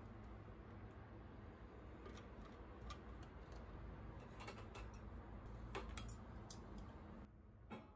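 Glassware and wooden utensils being lifted out of a metal wire dish rack: a handful of faint, separate light clinks and knocks, over a low steady hum.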